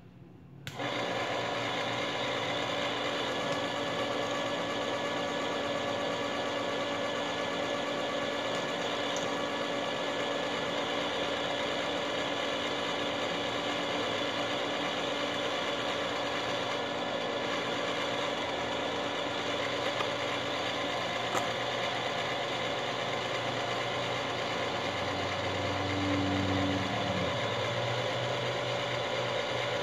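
Electric motor of a Frankford Arsenal Platinum Series case prep and trim center switched on about a second in and running steadily while brass cases are held to its spindle to be trimmed: a steady hum with several held tones, which changes briefly near the end.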